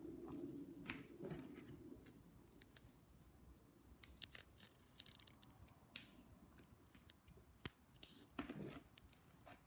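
Homemade white slime being squished and poked by hand, giving quiet, scattered sticky clicks and pops.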